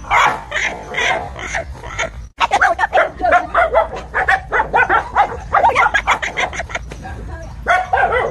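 Dogs barking repeatedly in quick, short barks, with a brief break about two seconds in.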